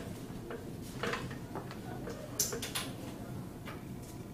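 Classroom room noise with a low steady hum and a few scattered light clicks and taps, the sharpest about two and a half seconds in.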